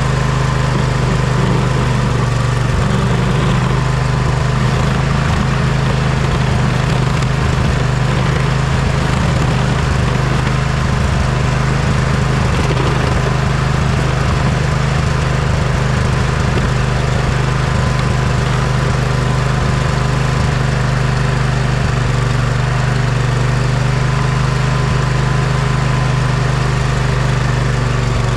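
Poulan riding lawn mower engine running steadily while plowing snow.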